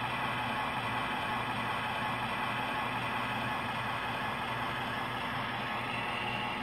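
Simulated diesel engine idling from the MTH Proto-Sound 2 sound system in a converted American Flyer Alco model locomotive: a steady hum with hiss through the locomotive's small speaker.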